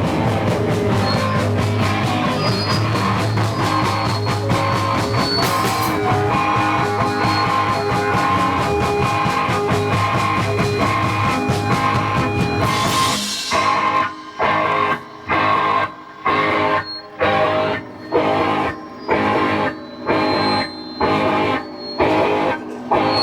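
Punk rock band playing live, loud guitar and drums. About halfway through the full-on playing breaks into a stop-start pattern of short hits with brief gaps between them, about one a second.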